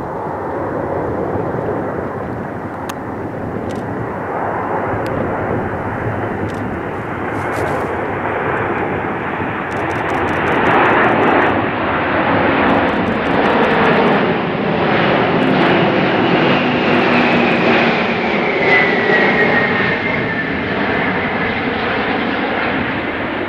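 Antonov An-225 Mriya's six D-18T turbofan engines passing low overhead on landing approach: a loud rushing jet noise that swells to its peak past the middle, with whining tones that fall in pitch as the aircraft goes by.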